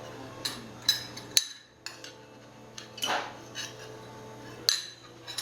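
A spoon knocking and clinking against a mixing bowl about six times, sharp separate strikes, as chopped onion is added.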